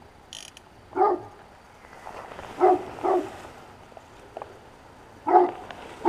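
A dog barking: one bark about a second in, a quick pair in the middle, and one more near the end.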